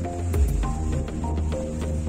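Background music with held notes over a bass line and a steady tapping beat.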